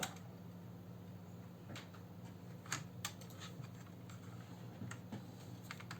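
Faint, scattered light clicks and taps of hands working a netbook's plastic case and touchpad ribbon cable, over a steady low hum.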